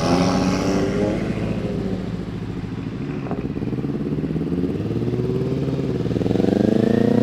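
Vehicle engines running close by and accelerating. The engine note sags early on, then climbs steadily over the last couple of seconds as one revs up.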